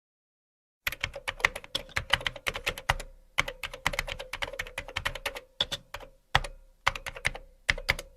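Typing on a computer keyboard: quick, irregular keystrokes with short pauses, over a steady faint hum. It starts about a second in.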